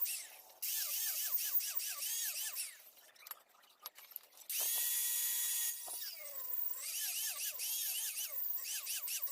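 Rapid back-and-forth strokes of a tool working a cleaver's steel blade, each stroke rising and falling in pitch. The strokes pause for over a second with a few clicks, then a steady tool sound runs for about a second before the strokes resume.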